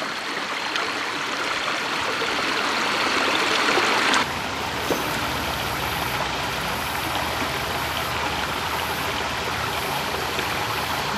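Creek water running over rocks, a steady rushing hiss. About four seconds in it cuts to a quieter, even rush with a low rumble underneath.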